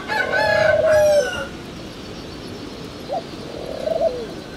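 Fighting cock crowing once, a held call about a second and a half long. Fainter calls follow about three seconds in.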